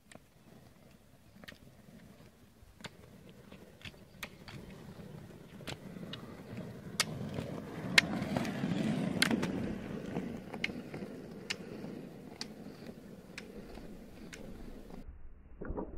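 Roller-ski wheels rolling on tarmac, the rumble growing louder as the skier passes close about eight seconds in and then fading. Sharp clicks of ski-pole tips striking the road come about once a second.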